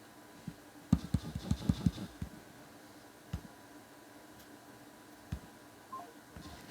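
Light taps and clicks: a quick run of about eight taps about a second in, then single taps a couple of seconds apart and a few more near the end. No ringtone is playing.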